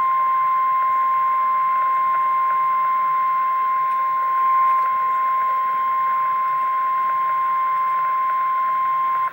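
Emergency Alert System attention tone: a single steady tone of about 1050 Hz, the NOAA Weather Radio warning alarm tone, held unbroken for about ten seconds over a steady hiss and cutting off abruptly at the end. It signals that a warning message is about to follow.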